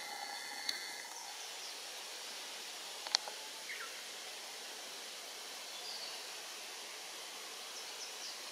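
Steady outdoor hiss of a wooded mountain roadside, with a short pitched call in the first second and a few brief bird chirps later. Two sharp clicks stand out, one under a second in and one about three seconds in.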